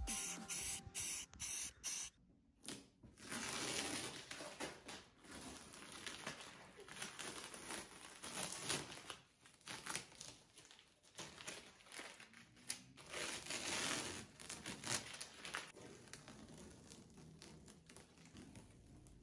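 Aerosol spray-paint can hissing in short spurts at first. After a brief gap, masking tape is torn and peeled off a freshly painted plastic golf cart body panel, ripping and crinkling unevenly.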